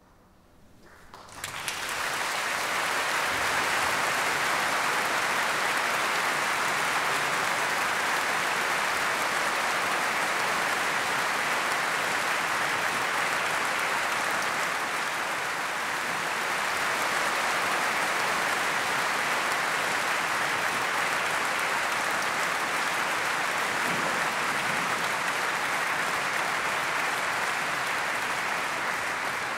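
Large concert audience applauding: dense, steady clapping that breaks out about a second in, once the last notes of the piece have died away, and starts to fade at the very end.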